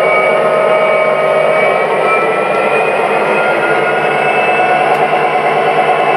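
Digital diesel engine sound from the Proto-Sound 2 speaker of an O-scale MTH Premier EMD GP35 model locomotive, running loud and steady while the train moves off.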